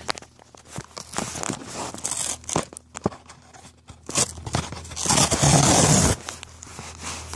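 Cardboard shipping box being opened by hand: irregular scraping, crackling and clicking of the box, then a loud tearing that lasts about a second, from about five seconds in, as the sealed box is torn open.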